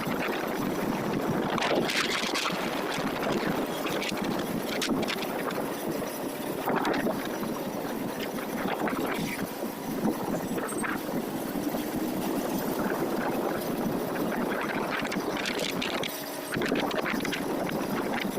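Steady rushing noise of a moving vehicle, with a few brief sharper sounds over it.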